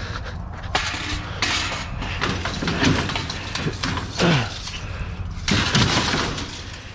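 Scrap metal being handled and loaded: repeated clanks and scrapes, with a few short squealing scrapes near the middle, over a steady low engine hum.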